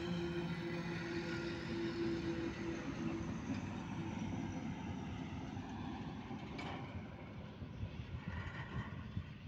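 Heavy box-bodied lorry driving past on a highway: a steady engine hum at first, giving way to tyre and road noise as it goes by and drives away.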